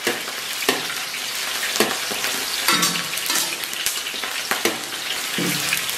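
Scallion, ginger, garlic and dried chillies sizzling in hot oil in a wok, with a metal spatula scraping and knocking against the wok about six times as they are stir-fried.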